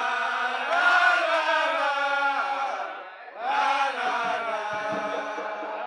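A man singing a gwoka chant in Guadeloupean Creole into a microphone, in long held notes. There are two phrases, with a short break about three seconds in.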